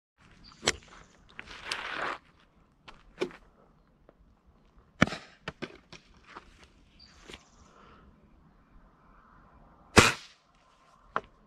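Pellet rifle firing once, a single sharp crack about ten seconds in, which the hunter follows with a self-mocking "I'm trash" (most likely a miss). Before it come scattered smaller clicks and knocks from the rifle being handled.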